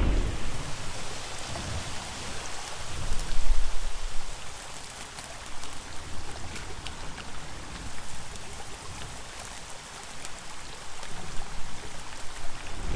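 Steady rain falling, a dense hiss of drops pattering on surfaces with many small ticks. About three and a half seconds in, a louder low rush swells briefly.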